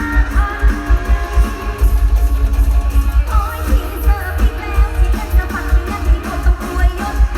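Live mor lam music played through a large concert sound system: a steady heavy bass beat under plucked electric strings and singing.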